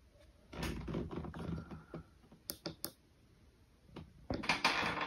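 A few sharp clicks from a laptop keyboard and touchpad, with soft rustling in between.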